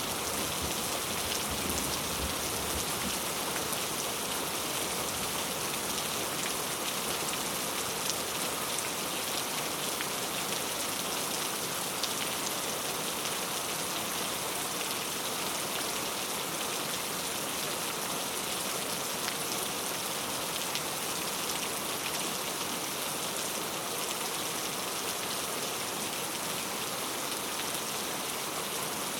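Steady rain: an even hiss of falling rain with fine pattering drops. The low tail of a thunder rumble dies away in the first second or two.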